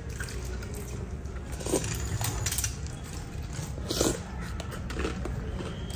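Eating at a table: a few short bite and sip sounds as fried chicken lollipops are bitten into and soup is sipped from a spoon, the clearest about a second and a half in and again about four seconds in, over a steady low background hum.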